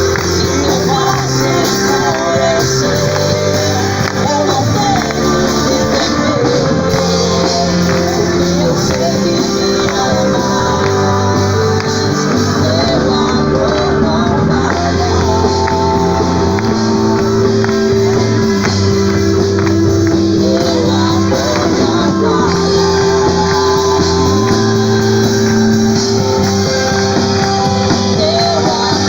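Worship music: a band playing steady held chords over a moving bass line, with voices singing.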